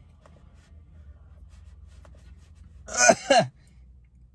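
A man's short vocal sound in two quick parts about three seconds in, falling in pitch, over a faint low hum.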